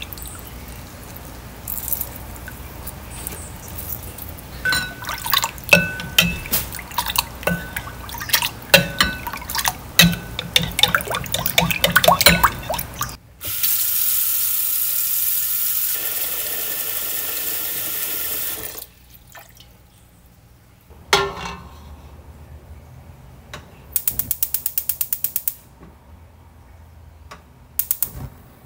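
Clinks and knocks against a ceramic bowl, then tap water running into a stainless steel pot for about five seconds, stopping suddenly. Near the end, a short burst of rapid, even ticking.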